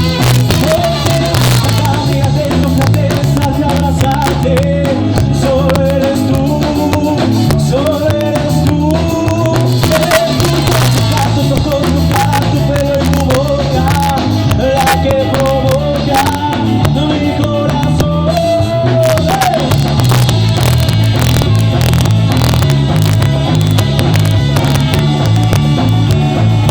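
Live ska band playing: a bass and drum beat runs under a wavering melodic lead line, which drops out about two-thirds of the way through while the rhythm keeps going.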